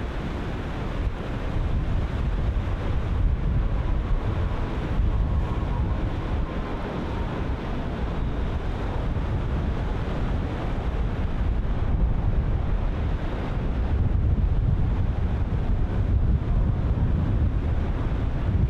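Ocean surf breaking and washing continuously, with strong wind buffeting the microphone as a deep, steady rumble.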